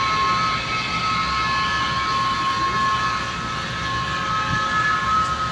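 HO-scale model steam locomotive's sound effects sounding a long multi-note steam whistle through its onboard speaker, held steady and fading out near the end.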